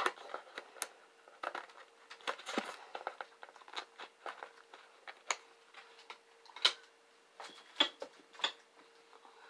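Irregular clicks, taps and scrapes of a plastic card prying at a small plastic cream container, struggling to get it open. A faint steady hum runs underneath.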